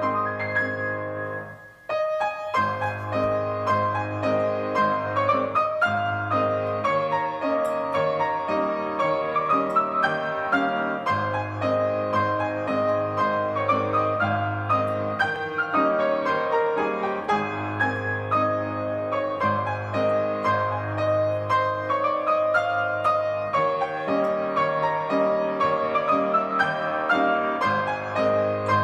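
Piano music, a steady flow of notes, with a brief break about two seconds in.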